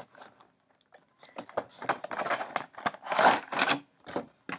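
Cardboard box being opened and clear plastic packaging crinkling and scraping as the glasses are pulled out: a run of crackles and rustles, densest and loudest about three seconds in.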